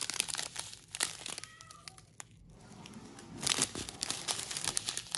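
Crinkling of a strip of clear plastic diamond-painting drill bags being handled, in two spells with a quieter pause in the middle.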